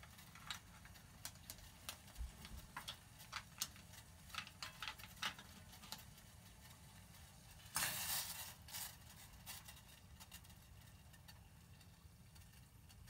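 Ice cubes dropped a few at a time into a saucepan of boiling water: scattered small clicks and taps, with a short sizzle about eight seconds in.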